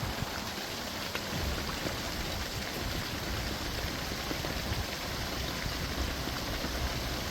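Steady rushing and splashing of water.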